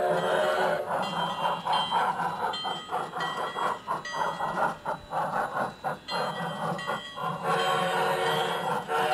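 G-scale model steam locomotive and its train of freight cars rolling downgrade, with irregular clicking and clacking from the wheels on the track. Background music plays at the start and comes back near the end.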